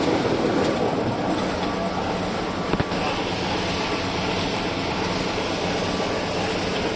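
Diesel locomotive engine running steadily at idle: a constant hum with a single sharp click about three seconds in.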